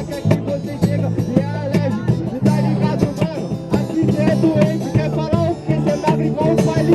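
Hip-hop battle beat with a repeating bass line, with a voice rapping over it.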